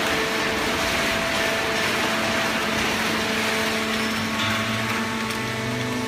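Automatic horizontal cardboard baler and its feed conveyor running: a steady machine noise with the hum of the hydraulic pump motor. A deeper hum joins about four and a half seconds in.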